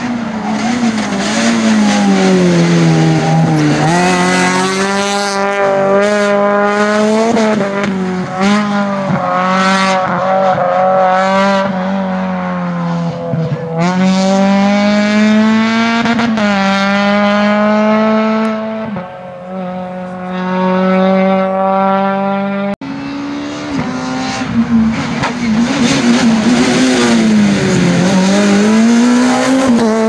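Rally car engines at high revs, the pitch climbing and then dropping again and again as the driver shifts through the gears. A sudden cut about two-thirds of the way through switches to another car's engine, which does the same.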